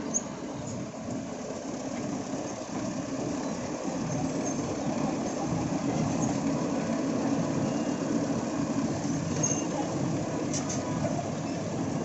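Heavy excavator's engine running steadily as it travels, swelling a little about four seconds in, with a few faint high clicks near the end.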